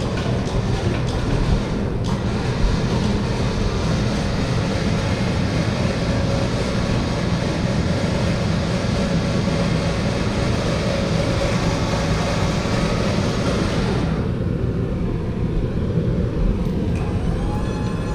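Service truck crane's electric-over-hydraulic pump running steadily as it lifts a heavy planetary housing, over a low steady engine hum. The whirring pump cuts off sharply about fourteen seconds in, leaving the hum.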